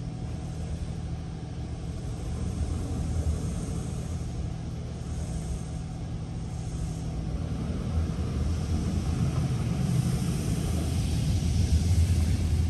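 Steady low drone of an automatic car wash's machinery and the idling car, heard from inside the car's cabin. Near the end a hiss of water and foam spraying onto the body and windshield grows louder.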